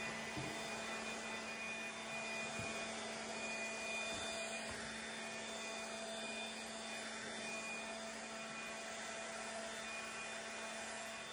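Battery-powered DeWalt leaf blower running steadily: a constant rush of air over a steady motor whine, as it blows standing water across a wet concrete floor.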